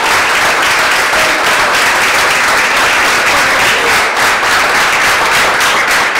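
Loud, steady applause from a roomful of people clapping.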